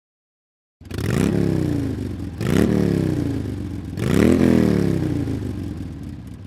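A motor revving three times, each rev jumping up in pitch and then sliding slowly down, about a second and a half apart.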